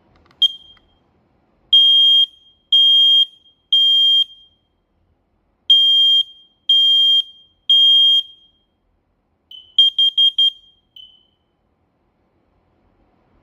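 Smoke alarm sounding under test with a loud, high-pitched beep. A short chirp comes first, then two sets of three beeps about one a second with a pause between, the standard temporal-three evacuation pattern. A quick run of short chirps follows before it stops.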